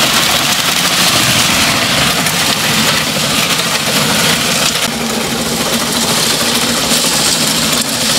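Motor-driven rotating drum sieve (trommel) running steadily while sifting vermicompost, with a continuous rushing rattle of the compost tumbling through the wire mesh.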